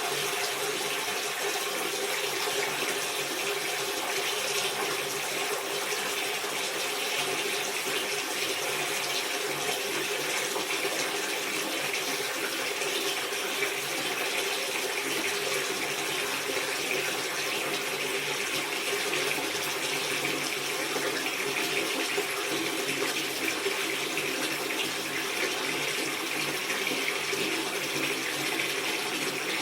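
Water running from a tap into a bathtub as it fills, a steady rushing splash that holds even, with a faint hum in its lower part.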